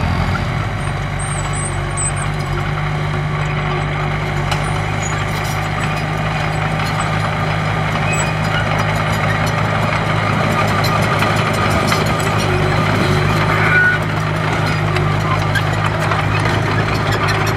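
Heavy construction machine's diesel engine running steadily at a constant pitch, with faint clatter from the work over it.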